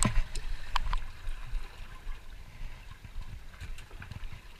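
Water slapping and gurgling against the hull of a small fishing boat, under a low uneven rumble, with a few sharp clicks in the first second and one more near the end.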